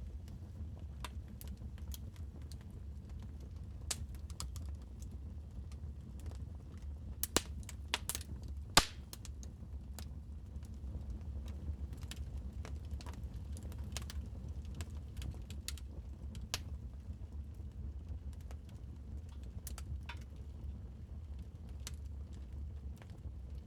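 Wood fire crackling in a fireplace: irregular small snaps and pops over a steady low rumble, with a few louder pops about seven to nine seconds in.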